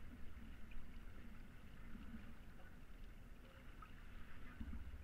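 Water rushing and splashing along the hull of a Hanse 355 sailing yacht under sail, over a steady low rumble of wind on the microphone.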